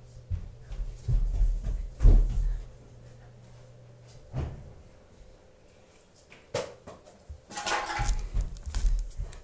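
Scattered knocks and thumps off camera, over a low hum that stops about four seconds in, then a rustling about two-thirds of the way through as a crocheted blanket is swung close past the phone's microphone.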